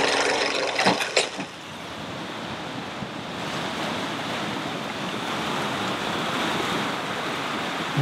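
A whirring hum with a few steady tones ends in two sharp clicks about a second in. Then a steady rushing of ocean surf grows slowly louder.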